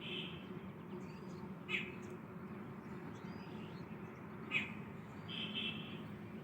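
Birds calling outdoors: a handful of short, sharp calls a second or few apart over a steady low background hum.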